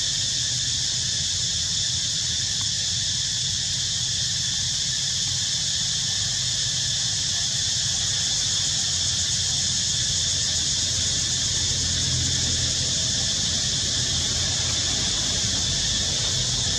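Steady high-pitched chorus of insects in tropical forest, unchanging throughout, over a low steady rumble.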